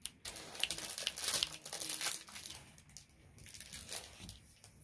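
Clear plastic toy packaging crinkling and rustling in irregular bursts as it is handled and folded closed, busiest in the first couple of seconds.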